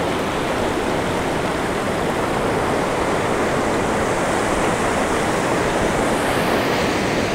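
Steady, even rush of ocean surf breaking along a beach, with no single waves standing out.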